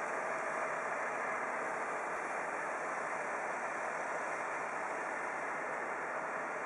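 Distant fire engines idling, heard as a steady, even noise with no distinct engine note.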